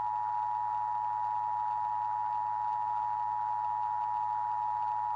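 Emergency Alert System attention signal: two steady tones sounded together (the 853 and 960 Hz EAS pair), held without a break over a faint hiss and low hum.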